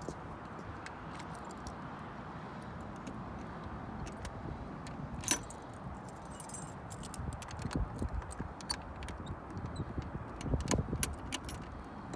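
A bunch of keys jangling and clicking as they are handled, with one sharp click about five seconds in and more clicks and knocks through the second half, over a steady background hiss.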